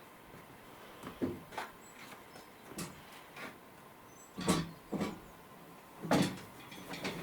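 Glass bottles of homemade cider clinking and knocking, about six separate knocks, as a heavy fibreglass catamaran hull is shifted beside them.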